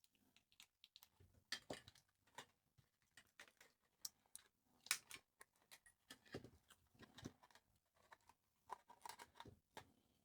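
Faint, irregular small clicks and scrapes of hand tools picking at the snapped metal connector pins of a 1980s calculator's display.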